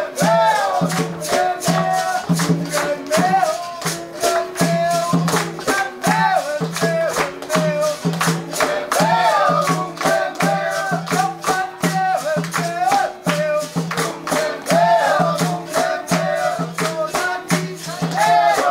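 Live capoeira roda music: berimbaus, pandeiros and an atabaque drum with group hand-clapping and call-and-response singing, in a steady rhythm.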